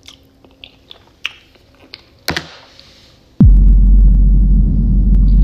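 A few faint clicks of a plastic fork against a plastic takeout container. About three and a half seconds in, a sudden loud low rumble starts and holds steady: handling and breath noise on a phone microphone held right up against the face.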